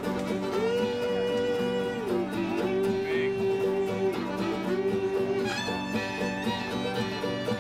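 Bluegrass music: a fiddle holding long notes and sliding between them over guitar accompaniment.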